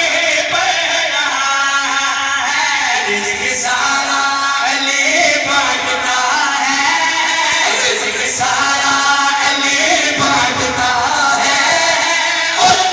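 A man's voice singing a Shia devotional qasida in long, drawn-out sung phrases.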